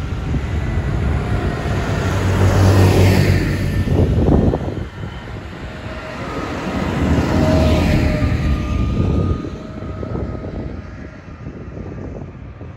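Two large diesel farm tractors, the nearer a New Holland, driving past one after the other. Their engine drone and tyre rush swell to a peak about 3 s in and again around 7–8 s, then fade as they move away.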